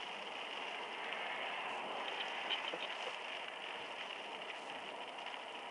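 Steady rain, an even hiss with scattered light ticks of drops.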